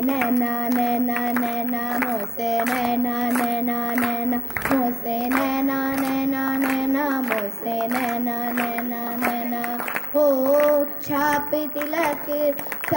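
A young girl singing solo into a handheld microphone, holding long, steady notes with short breaths between phrases.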